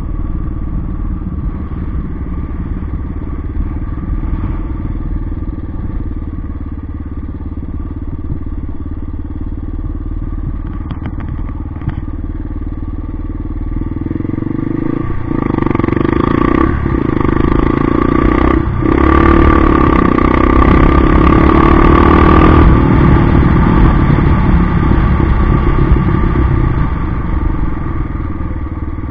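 Yamaha XT 600's air-cooled single-cylinder four-stroke engine running as the motorcycle is ridden. About halfway through it speeds up and gets louder, with three brief dips in the sound, then holds at the higher level.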